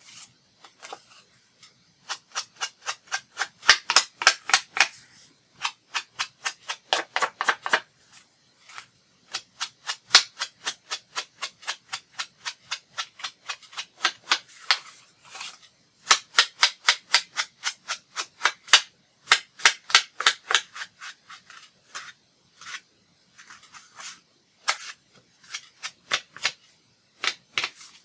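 Ink blending tool rapidly dabbed and swiped along the edges of a paper piece to ink them. It makes quick scratchy strokes, about five a second, in runs of a few seconds with short pauses between.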